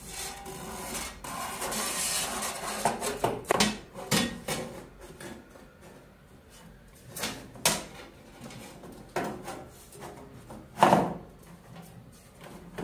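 Thin sheet-metal cover panels being slid and fitted onto a machine's electronics cabinet: scraping and rubbing, then a series of knocks, the loudest near the end.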